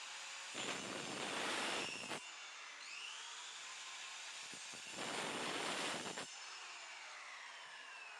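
A power tool working on a wooden pallet: a steady motor whine with two harsh bursts of about a second and a half each, one about a second in and one about five seconds in, as it cuts into the wood.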